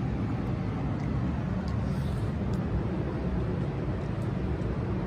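Yanmar L48V single-cylinder air-cooled diesel engine running steadily with a low, even rumble.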